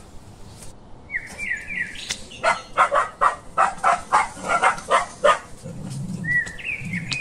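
Dog barking in quick succession, about a dozen short sharp barks over some three seconds, starting about two seconds in. Birds chirp before and after the barking.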